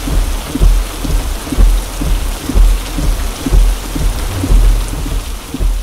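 Heavy rain beating on a car's windshield during a storm, with a low thump repeating evenly about once a second.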